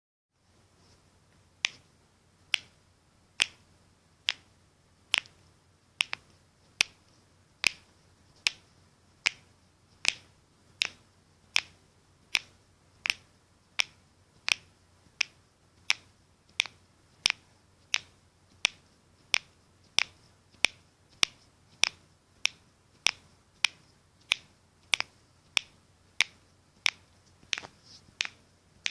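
Knuckles cracking: a long run of sharp pops, a little more than one a second, in a steady even rhythm that begins about one and a half seconds in.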